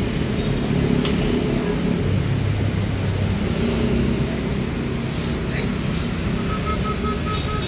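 Steady street traffic, with motor-vehicle engines running close by. A short run of high beeps sounds near the end.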